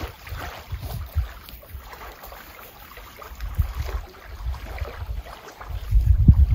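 Wind gusting over the microphone, an uneven low rumble with a stronger gust near the end.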